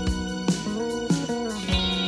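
Background music: plucked electric guitar over a bass line with a steady beat.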